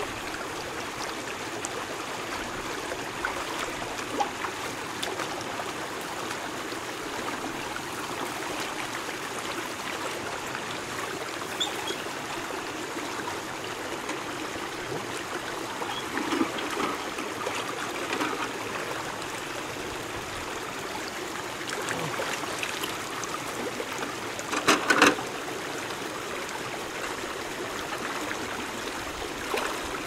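Shallow stream running and trickling over rocks, a steady wash of water. Brief splashes break through now and then as a person wades in the water, the loudest a quick cluster about three-quarters of the way through.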